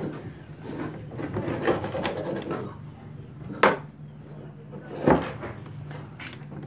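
Two sharp knocks of a wooden block against wooden floorboards, about a second and a half apart, with low voices murmuring in the first half.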